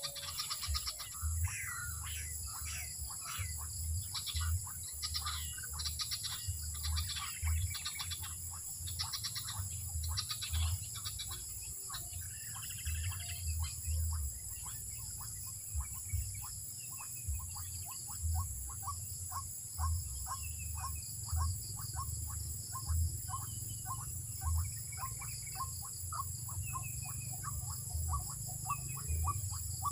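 A bird calling in a long run of short repeated notes, settling into a steady rhythm of about two to three a second in the second half. Under it runs a steady high insect drone, with scattered low thumps.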